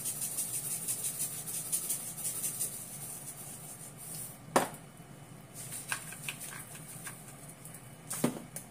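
Salt-and-pepper shaker can being shaken over a pan of pork tripe: a fast, high rattle of strokes for the first few seconds. Then two sharp knocks, the louder about four and a half seconds in, with a few light ticks between.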